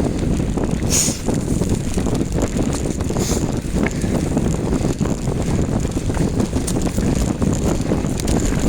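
Steady rumble of wind and ground noise on the microphone during a bicycle ride uphill over rough ground, with scattered rattles and clicks and two short hissing gusts about a second and three seconds in.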